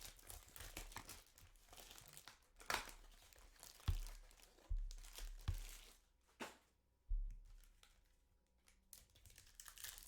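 Trading-card box and foil pack wrappers being handled and torn open: crinkling and tearing with several short knocks and taps, and a quieter lull about two-thirds of the way through.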